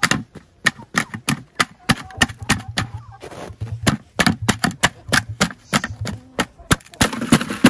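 Boots stomping on an upside-down frozen plastic water bowl to break the block of ice loose, short sharp crunching knocks about three or four a second. Near the end the knocks run together into a louder cluster.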